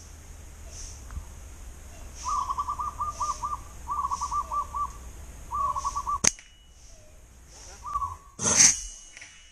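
A bird calls in three quick runs of short hooting notes, with a faint high pulsing behind it. About six seconds in a sharp snap comes from the flat-band slingshot being shot, and a louder burst of noise follows about two seconds later.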